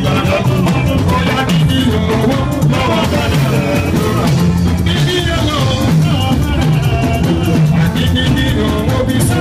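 A juju band playing live, with drums, a steady bass line and singing.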